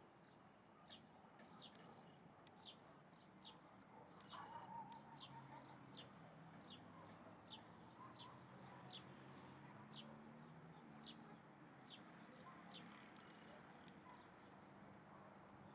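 A bird repeating a short, high chirp at a steady pace of a little over one a second, faint, with a softer lower call about four seconds in.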